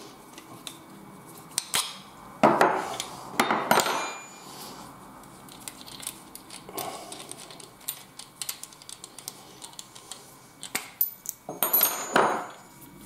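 Small metal parts and tools being handled on a workbench: scattered clinks and knocks, with two louder bouts of clatter, one about two and a half seconds in and one near the end.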